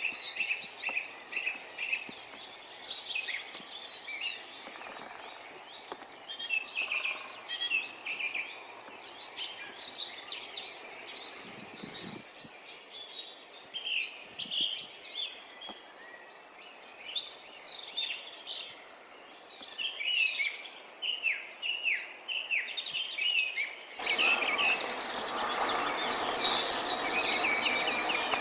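Several songbirds singing and calling over each other in short high phrases and chirps. About 24 seconds in, this gives way abruptly to a louder, steady rushing noise, with a fast, high, repeating trill near the end.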